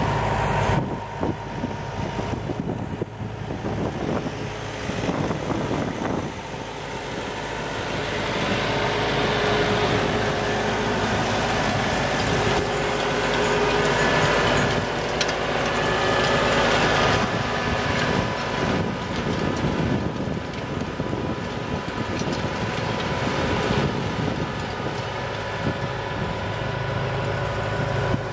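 Tractor engine running steadily as it pulls a finger-weeder row cultivator through the soil, louder for a stretch in the middle as it passes close by.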